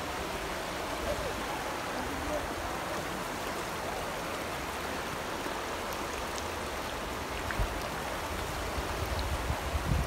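Shallow, rocky mountain river flowing over stones: a steady wash of water.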